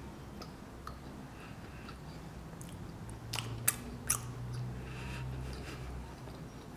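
Chewing a mouthful of chocolate-chip brownie with the mouth closed: soft, wet mouth clicks and smacks, a few sharper smacks about three to four seconds in.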